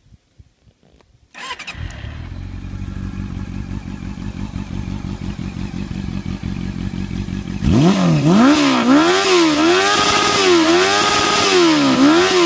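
Honda CB400 Super Four VTEC III inline-four engine, breathing through a titanium Yoshimura slip-on silencer, starts about a second in and idles steadily. About six seconds later it becomes much louder as the throttle is blipped over and over, the revs rising and falling several times in quick succession. The owner says the engine runs slightly rich.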